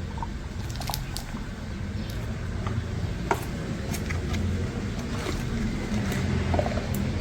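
Light clicks and taps of a screwdriver working the rubber seals off an oil filter housing, scattered irregularly over a steady low hum.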